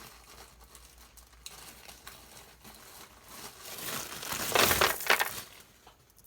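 A plastic bag of beads crinkling as it is handled and opened: faint rustling at first, growing louder about four to five seconds in.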